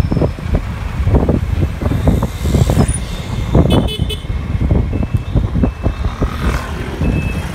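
Wind rumbling on the microphone and road traffic noise from riding along a city road, with a short vehicle horn toot about three and a half seconds in.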